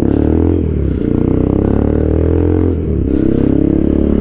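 TVS Apache RTR 200 4V's single-cylinder engine running through an aftermarket full-system exhaust while being ridden. The engine note drops sharply and climbs again twice, about a second in and near three seconds.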